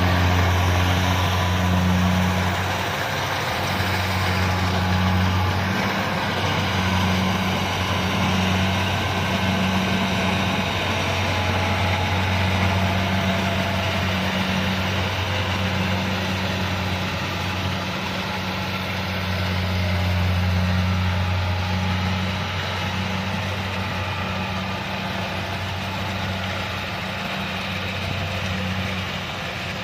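Kubota DC-70 combine harvester's diesel engine running steadily, a deep low hum that swells and eases slightly every few seconds.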